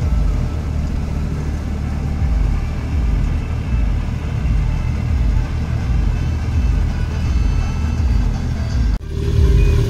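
Massey Ferguson 9500 tractor running under load, driving a KS straw reaper that is cutting wheat stubble into straw and blowing it into a trailer: a steady low engine rumble with the reaper's drone. About nine seconds in it breaks off abruptly and a steadier hum with a clear tone takes over.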